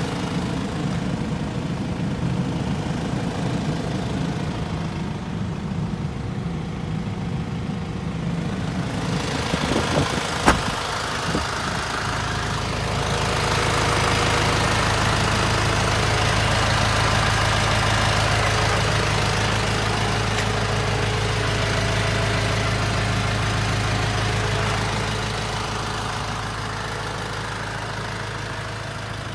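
Toyota Dyna truck's engine idling steadily, louder through the middle stretch, with one sharp knock about ten seconds in.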